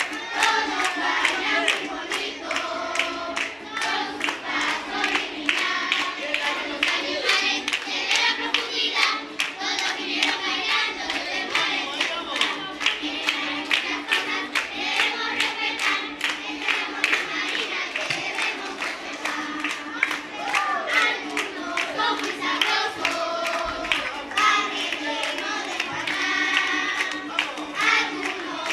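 A group of children singing a song together while clapping their hands in a steady rhythm.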